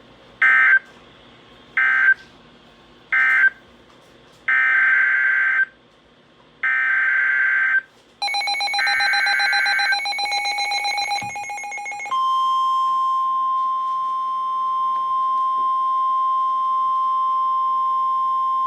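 NOAA Weather Radio Emergency Alert System data: three short chirping end-of-message bursts, then three longer SAME header bursts that announce the next warning. A second, buzzier electronic alert tone overlaps them about 8 seconds in. About 12 seconds in, the steady 1050 Hz warning alarm tone begins and holds.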